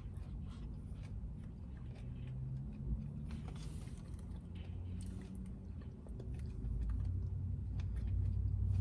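Close mouth sounds of someone eating frozen yogurt with toppings: chewing with small wet clicks and smacks. A low rumble underneath grows louder near the end.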